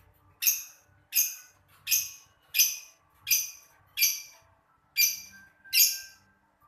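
Lovebird giving a run of eight short, shrill, high-pitched calls, about three every two seconds.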